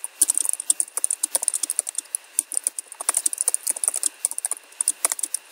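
Typing on a computer keyboard: a quick, irregular run of keystroke clicks as a sentence is typed out.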